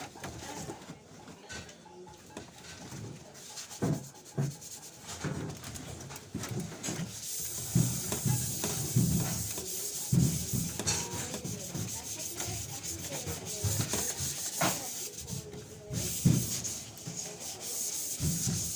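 Sandpaper rubbing over the sheet-metal body of a washing machine: a rough, uneven scraping that comes in irregular strokes, with a few light knocks.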